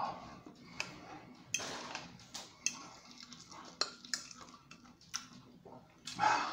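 A fork and a stemmed cup clinking and scraping against each other as food is handled, in about a dozen short, irregular clicks.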